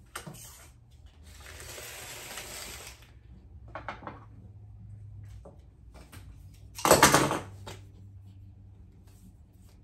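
Rustling and scraping as a plastic nursery pot holding a squash seedling is slid across a countertop and handled, with a short louder scrape about seven seconds in.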